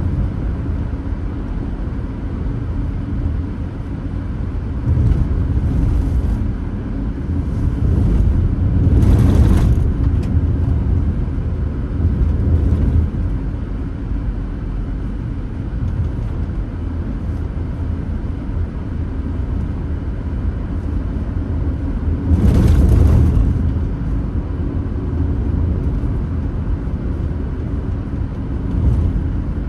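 Steady low rumble of a car driving on the road, with two brief louder whooshes, one about nine seconds in and another around twenty-three seconds in.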